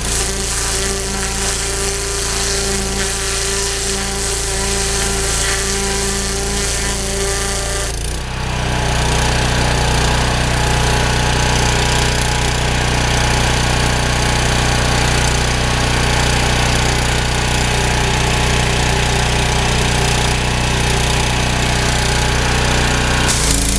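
A 3000 psi pressure washer running with a turbo nozzle: a steady motor drone under the hiss of the high-pressure spray. About eight seconds in the sound turns louder and heavier, and near the end it changes back.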